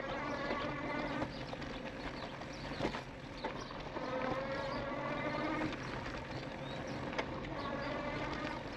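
E-bike motor whining in three spells of a second or so, its pitch rising slightly each time, over the rumble of tyres on a dirt trail. A few sharp knocks and rattles from the bike going over bumps.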